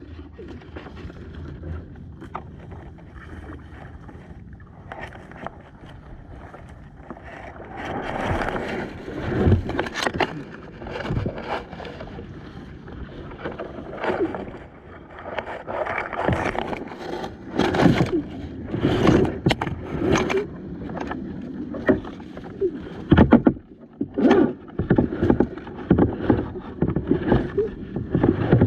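Kayak paddling: the paddle blades dip and splash in the water at an uneven pace, with scattered sharp knocks of the paddle or hull. The strokes grow busier from about a third of the way in.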